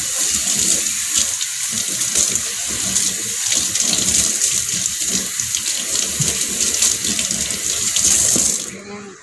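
Kitchen tap running steadily onto a bunch of moringa (malunggay) branches rinsed under the stream in a stainless steel sink, water splashing off the leaves. The flow stops near the end.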